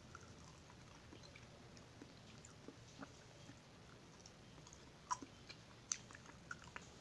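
Faint chewing and biting of fried banana with cheese, close to the mouth: soft scattered mouth clicks, with two sharper clicks about five and six seconds in.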